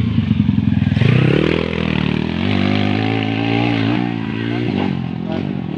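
Dirt bike engine pulling away: it revs up about a second in, holds a steady high rev with a slight waver, then eases off and fades near the end.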